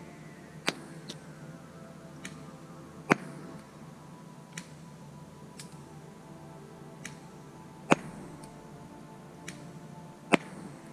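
Double Eagle EMG Noveske N4 gas blowback airsoft rifle firing single shots, heard as faint distant cracks, a few seconds apart. Several are followed less than a second later by a louder sharp smack as the BB strikes the cloth target. Some faint shots have no smack after them: those BBs miss. Background music plays underneath.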